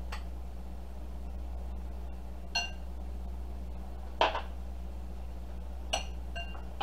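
Glass dishes clinking together twice, about two and a half and six seconds in, each clink ringing briefly, with a short knock a little after four seconds, over a steady low hum.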